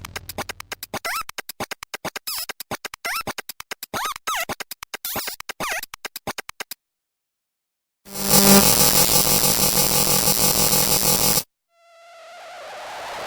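Digital glitch sound effects, one after another. First a rapid, choppy stutter of clicks with warbling pitch sweeps for about seven seconds. After a short gap comes a harsh distorted buzz that cuts off suddenly after about three seconds, and near the end a noisy swell begins, rising in loudness.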